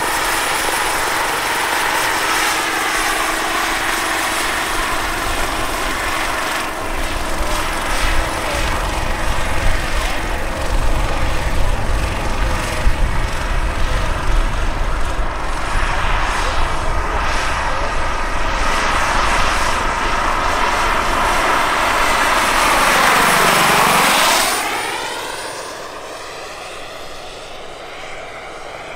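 Turbine-powered large-scale RC Bell 206 JetRanger model helicopter in flight: a steady, high-pitched turbine whine over the beat of its 3.25 m main rotor. The sound builds as it climbs and passes. About 24 seconds in, the whine dips slightly in pitch and the helicopter fades as it flies off.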